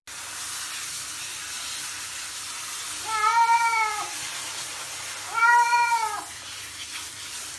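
A cat meowing twice, each a long drawn-out meow that rises and falls in pitch, over a steady faint hiss.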